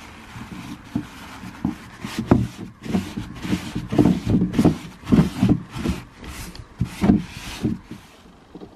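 A paper towel rubbing and wiping a plastic engine cover, with plastic bag crinkling: irregular scuffs and rustles, busiest in the middle and dying away near the end.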